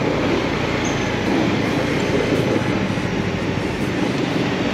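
KTM 390's single-cylinder engine running under way, mixed with a steady rush of wind and road noise on the motorcycle-mounted microphone.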